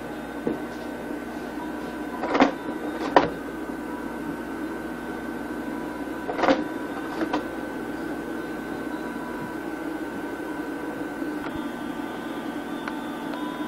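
A steady mechanical hum with several held tones. A handful of brief knocks fall in the first half.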